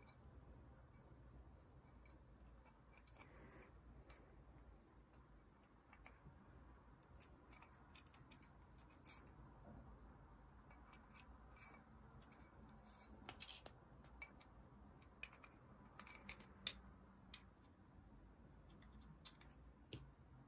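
Faint, scattered clicks and light taps of small airsoft pistol parts being handled and fitted together by hand, with a few sharper clicks in the middle and near the end.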